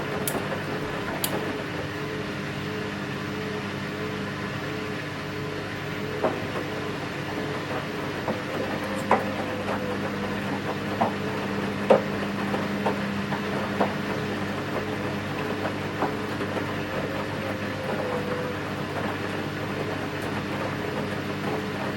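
Washing machine running its wash cycle: a steady motor hum with a wavering tone as the drum turns, and scattered sharp clicks and knocks from the tumbling load, mostly in the middle of the stretch.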